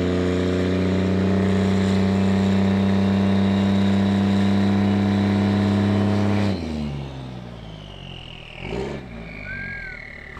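Lifted Dodge Ram pickup's engine running steadily and loud through its large exhaust. About six and a half seconds in the revs fall away and it goes much quieter, running low as the truck pulls off.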